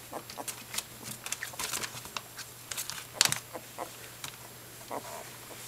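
Newborn Welsh Springer Spaniel puppies shuffling and scrabbling on a fleece blanket: soft scattered rustles and scratchy ticks, with one sharper tap about three seconds in and a short puppy grunt near the end.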